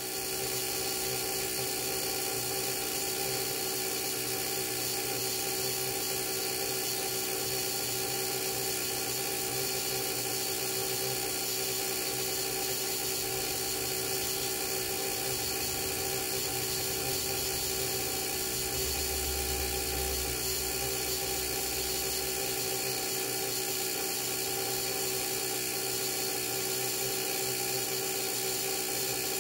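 School bus dashboard buzzer sounding steadily with the key switched on and the engine off, a constant many-toned electrical whine that steps up a little in level right at the start.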